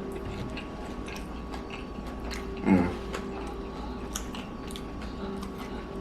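A person biting and chewing a fried chicken sandwich close to the microphone, with small wet, crackly mouth sounds. There is a short hummed voice sound about halfway through.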